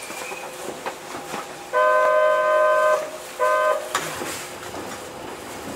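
Kobe Municipal Subway 1000 series train horn sounding twice over the train's steady running noise: a long blast of about a second, then a short one, several tones sounding together.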